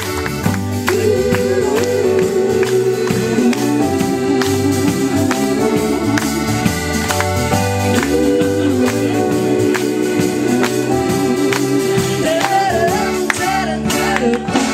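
Live pop-rock band playing an instrumental passage with an organ-like keyboard holding long, wavering notes over a steady drum beat.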